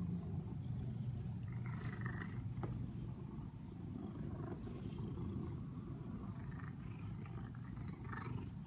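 Domestic cat purring very loudly and steadily, right up against the microphone.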